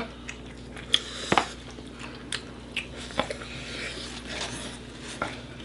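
Someone biting and chewing a chicken wing close to the microphone: irregular wet clicks and smacks.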